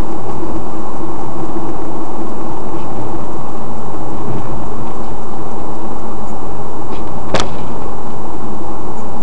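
Loud, steady road and engine noise inside a moving car, picked up by a dashboard camera, with a steady low hum throughout. A single sharp click sounds about seven seconds in.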